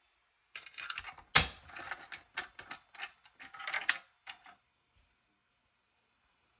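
A rapid, irregular clatter of clicks and knocks, with one louder knock about a second and a half in, stopping after about four and a half seconds.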